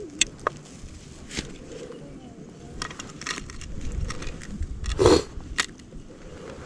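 Irregular crunching and clicking of snow and ice underfoot or under handled gear, with one louder crunch about five seconds in over a low rumble.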